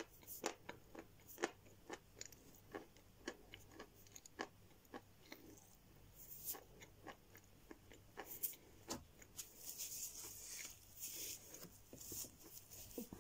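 A person chewing and biting lumps of edible chalk with mouth closed, giving soft, irregular crunches about one or two a second. A hissier rustle comes about ten seconds in.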